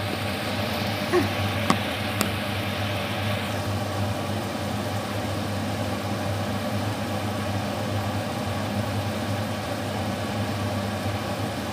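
Boiling water hissing in a hot pan of vegetables for the first three or so seconds, with a few light clicks, over a steady low hum that continues after the hissing stops.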